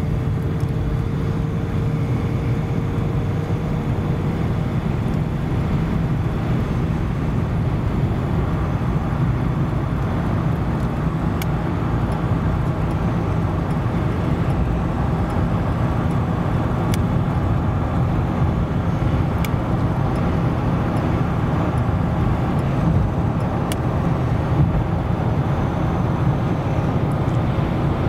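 Steady engine and road noise inside the cabin of a 1979 Lincoln Continental cruising at highway speed, a low, even rumble with a few faint ticks.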